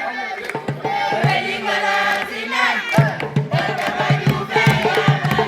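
A group of voices singing a chant together over hand drums. The drumming thins out briefly and comes back as a steady, strong beat about halfway through.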